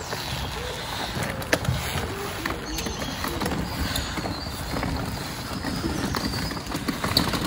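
A manual wheelchair's wheels rolling over a rough paved footpath, with footsteps and scattered clicks and rattles.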